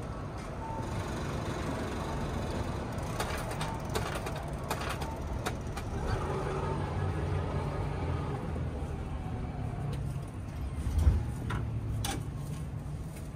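Vending machine's delivery mechanism running: a steady low motor hum with scattered clicks and knocks as the boxed order is moved inside, then a louder thump about eleven seconds in as it reaches the pickup bay.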